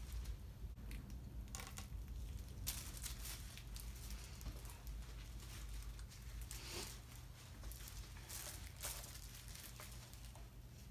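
Faint rustling and handling noises, a few short bursts, over a low steady hum.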